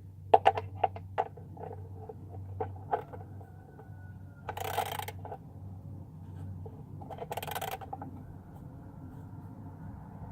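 Metal clinks and knocks of a wrench being handled, then two short bursts of ratchet clicking as the oil drain plug is tightened.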